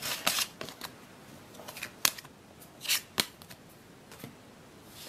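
Star Wars Force Attax trading cards being handled and laid down on a wooden table: several short, sharp card snaps and slides, the loudest about two and three seconds in.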